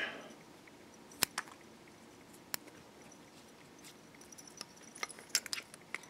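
Small handling noises at a fly-tying vise: a few sharp clicks, then a patter of faint ticks and rustles near the end, as hands and a scissor-like tool work the fly's folded foam body.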